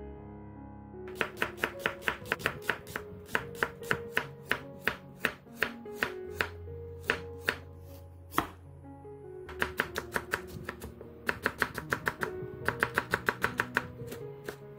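Chef's knife slicing a carrot and then a red chili into thin strips on a wooden cutting board. The blade knocks on the board in quick, even runs of about five strokes a second, with short pauses between the runs, over soft background music.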